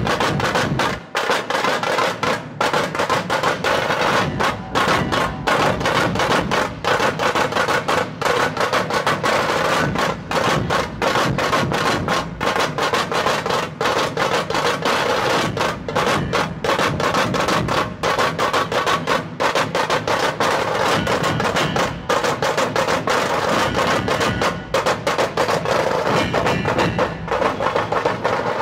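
Dhol-tasha ensemble playing: tasha drums beaten with thin sticks in dense, continuous drumming over the beats of large dhol barrel drums.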